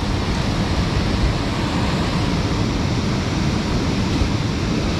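Steady rushing roar of water pouring over a dam spillway, even and unbroken.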